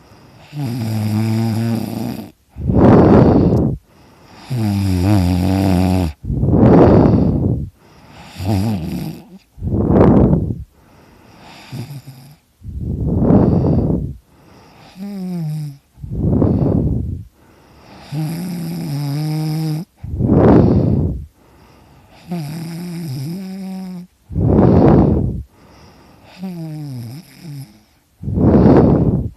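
A sleeping person snoring heavily, about one breath every three and a half seconds. Each breath pairs a low, pitched buzzing snore with a louder, harsh rush of air.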